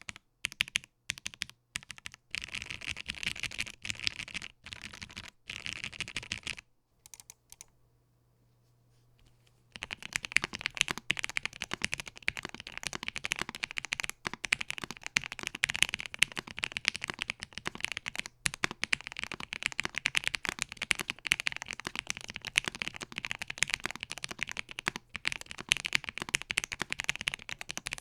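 Typing on a Satisfaction75 mechanical keyboard. A few separate keystrokes come first, then a run of typing, a pause of about three seconds, and then fast continuous typing.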